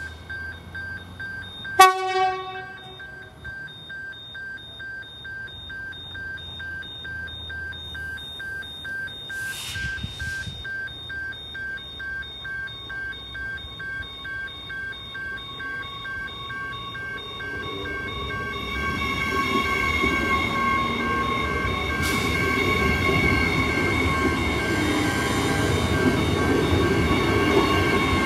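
Level crossing warning bells ringing steadily at about two strokes a second, with one loud ringing clang about two seconds in. From about two-thirds of the way through, an electric suburban train's rumble and motor whine build up as it runs through the crossing.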